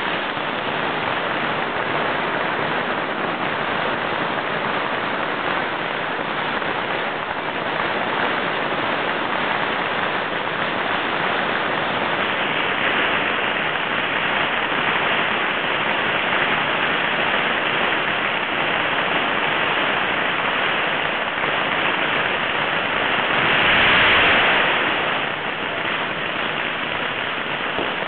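Fireworks display: a dense, unbroken crackle and fizz from rising and bursting fireworks, with one swell louder about three-quarters of the way through.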